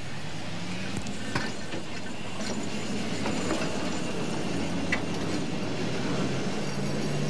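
PCC streetcar running along street track: a steady rolling noise of steel wheels on rail, with a sharp click about a second and a half in and another near five seconds.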